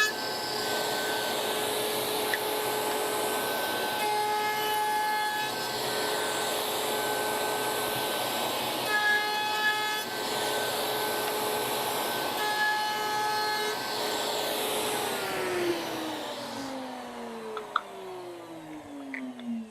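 Table-mounted router running with a steady whine while a bead ovolo cutter shapes the edges of a small wooden plinth, growing louder during each of several short passes through the wood. About three-quarters of the way through, the router is switched off and its whine falls steadily in pitch as the cutter spins down.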